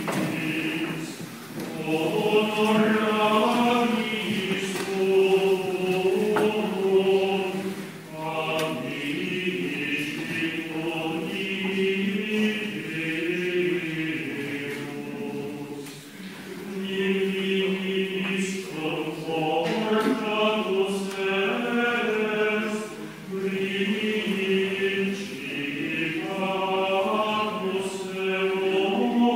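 A choir sings Latin liturgical chant during a sung Mass, in long held phrases with short breaks between them.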